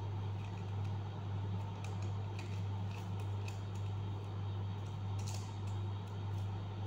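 Faint crinkling and soft clicks of foil-backed origami paper being creased and folded by hand, with one slightly longer rustle about five seconds in, over a steady low hum.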